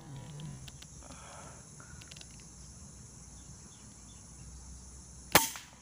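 A single sharp air-rifle shot about five seconds in, by far the loudest sound, fired at a spotted dove. Before it, a steady high drone of insects.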